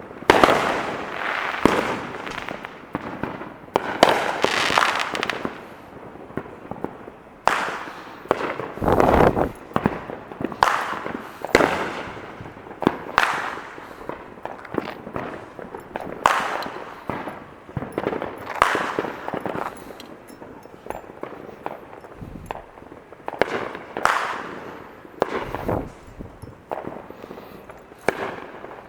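Fireworks going off in a steady barrage, a sharp bang every second or two, each trailing off in an echoing rumble and crackle.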